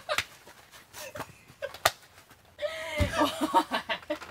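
A few sharp hand slaps on a person's body in the first two seconds, then a long drawn-out shout of "oooi" from a little past halfway to the end.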